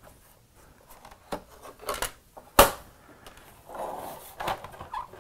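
Handling noise from a Timex Sinclair 2068 computer's plastic case and its plug-in cartridge: scattered light clicks and knocks, one sharp knock about two and a half seconds in, then a short scraping rustle as the computer is lifted and turned.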